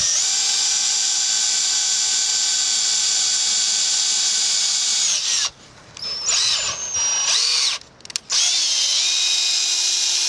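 Cordless drill boring a large hole through a PVC end cap, its motor running with a steady whine. It stops after about five seconds, gives a few short bursts, then runs steadily again for the last few seconds.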